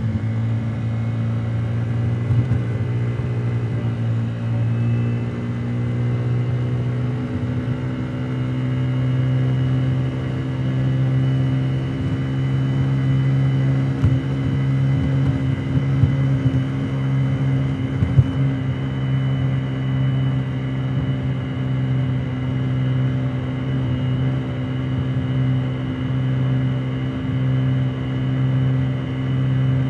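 Honda Today 50cc moped's single-cylinder four-stroke engine running at a steady pitch, heard from inside the scooter's under-seat helmet compartment. A few brief knocks cut through it.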